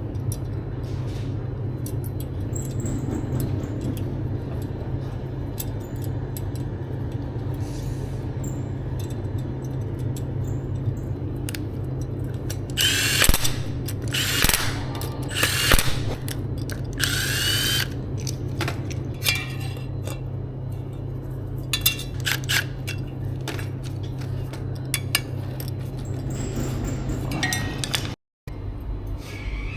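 A power drill running in several short bursts, speeding up and slowing down, with scattered clicks and knocks over a steady low hum.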